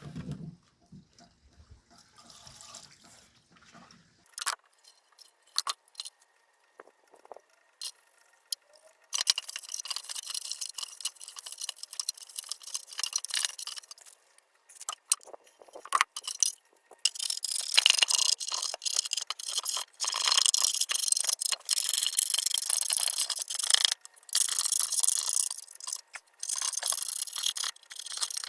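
Compressed-air blowgun hissing in repeated blasts with short gaps, starting about a third of the way in, as it blows washed-out sludge and liquid out of an engine oil pickup. Before the blasts there are only a few light clicks of handling.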